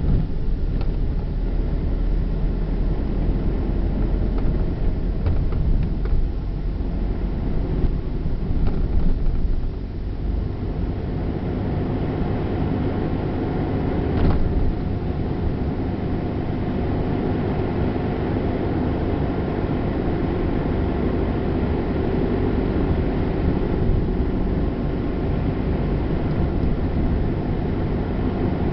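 Inside a moving car: steady engine and tyre rumble on a wet, uneven road, with a few jolts from bumps and a sharp click about fourteen seconds in.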